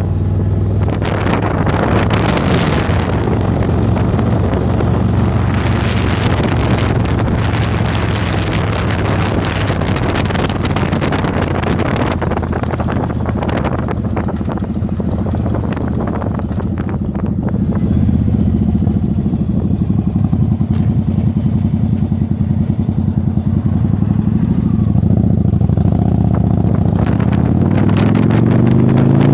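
Yamaha Virago 1100's air-cooled V-twin engine running under way, with wind buffeting the microphone. Near the end the engine pitch rises as it accelerates.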